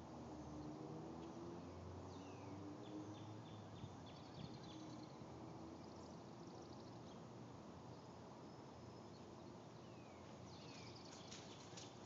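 Faint outdoor quiet with small birds chirping now and then, including a run of quick chirps about three to four seconds in, over a faint low drone.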